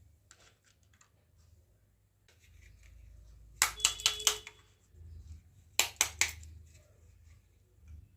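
Small plastic toy kitchen pieces clicking and tapping together as they are handled. There are two quick clusters of sharp clicks, about four each, a couple of seconds apart in the middle.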